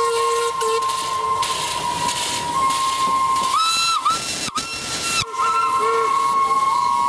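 Several metre-gauge steam locomotives passing with their whistles blowing together in long, steady notes of different pitches, over the hiss of escaping steam. A higher whistle joins from about three and a half seconds in and stops about two seconds later.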